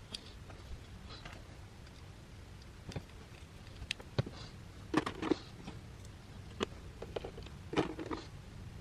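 Scattered light clicks and knocks of small metal and plastic parts being handled as the soldering station's case is closed up, over a faint low hum.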